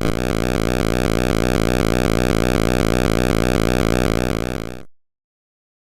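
Steady, buzzy synthesizer sound with a fast, even pulsing. It fades out about four and a half seconds in, then cuts to silence.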